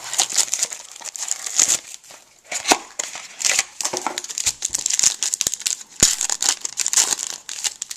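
Foil wrapper of a 2009 Bowman Sterling football card pack being torn open and crinkled by hand: a dense run of irregular sharp crackles, with a few louder snaps.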